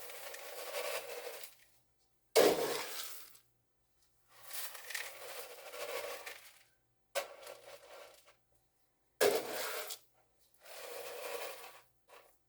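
Scoop digging into mixed grain-and-seed chicken feed and pouring it into a feeder bucket, over and over: longer grain pours of one to two seconds alternate with shorter, sharp-starting scoops.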